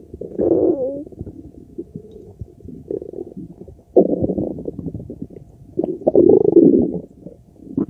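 Loud stomach and bowel gurgling and rumbling during digestion: irregular gurgles of about half a second to a second each, the strongest about four and six seconds in, one of them briefly squeaking up and down in pitch near the start.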